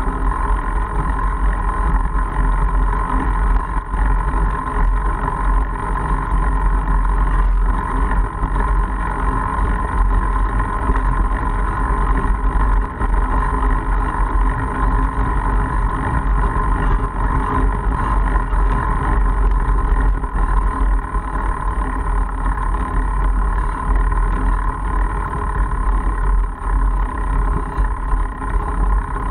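Mongoose Argus fat bike rolling along a dirt and gravel road: a steady rumble of the wide tyres on the ground, with a constant hum over it and wind on the microphone.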